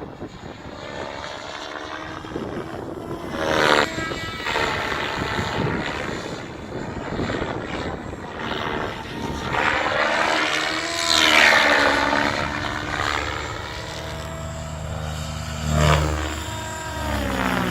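Electric RC helicopter in flight, its rotor and motor whine rising and falling in pitch as it manoeuvres, loudest about two-thirds of the way through.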